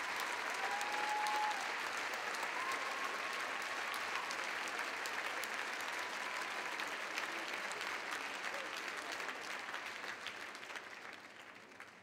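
A theatre audience applauding with dense, steady clapping that dies away over the last few seconds.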